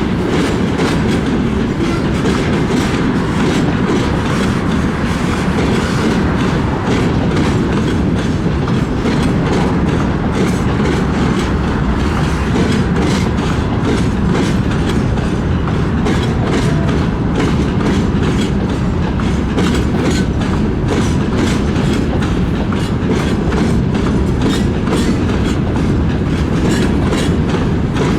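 A train's wagons rolling steadily past, wheels clicking over the rail joints over a continuous loud rumble.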